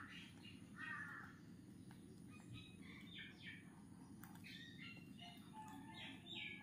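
Faint parrot calls: a string of short, harsh chirps and squawks, clustered a couple of seconds in and again towards the end.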